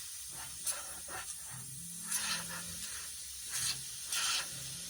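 Several brief scraping and handling sounds as a new Eaton 13-speed shifter knob is spun by hand down the threads of the shift lever, over a steady hiss.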